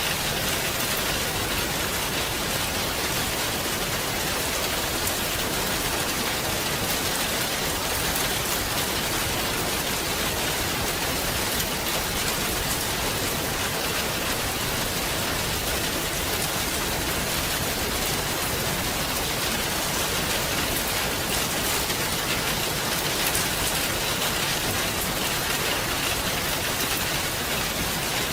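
Steady rain falling: an even, unbroken hiss with many fine drop patters.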